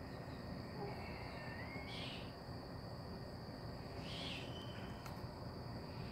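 Outdoor insect chorus, a steady high-pitched drone, with three short high calls about two seconds apart.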